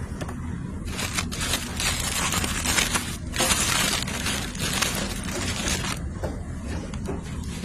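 Toy packaging crinkling and rustling as it is handled and opened, a dense crackle that starts about a second in, breaks off briefly in the middle and stops shortly before the end, over a steady low hum.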